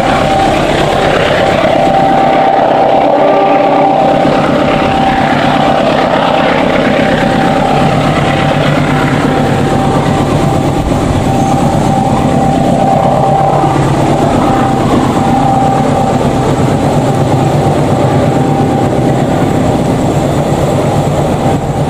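Passenger train running away on the rails, its carriages rolling with a steady rumble and wheel clatter, with a thin steady whine coming and going in it.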